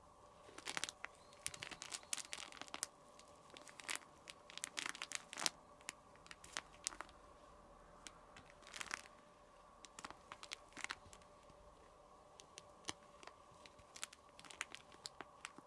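Crinkly cat toy rustling and crackling in irregular bursts as a kitten bats and handles it, over a faint steady hum.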